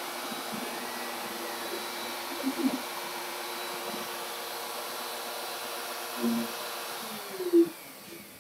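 Router spindle on a CAMaster Stinger I CNC machine running steadily, fitted with a 90-degree V-bit, with a few short whirs of the machine's axis motors moving the head. Near the end the router switches off and its pitch falls as it winds down.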